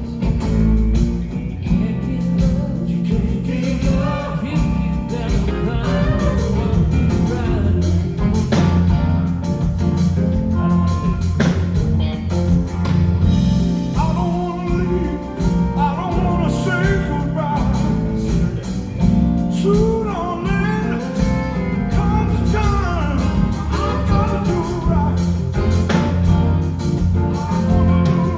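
Live band with a male lead vocal playing a soft-rock ballad: a steady bass and drum groove under a sung melody, with keyboard and guitar.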